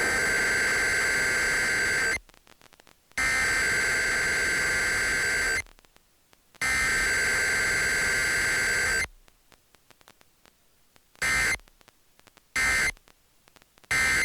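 Emergency Alert System Required Weekly Test: three harsh two-tone digital SAME header bursts of about two and a half seconds each, a second apart, followed by three short end-of-message bursts.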